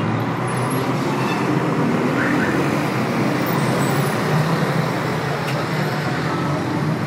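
Dense city avenue traffic: a steady wash of car and bus engines and tyre noise.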